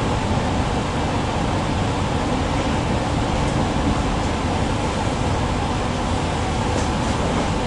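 Steady running noise inside the passenger cabin of an NS ICMm electric intercity train on the move: an even low rumble of wheels on rail with a hiss of air over it.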